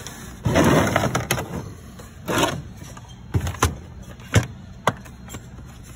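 A metal tool chest drawer sliding on its rails, then several sharp knocks and clunks as the tools and cases inside are handled.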